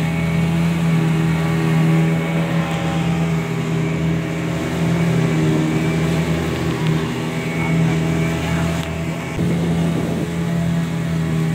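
Motorboat engine running steadily at speed, an even hum over the rush of water against the moving boat.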